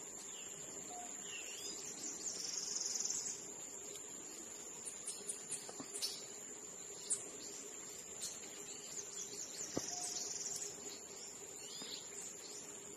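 Insect and bird ambience: a steady high-pitched insect trill, two louder pulsing insect buzzes of about a second each (about two seconds in and near ten seconds), and a few short bird chirps and clicks.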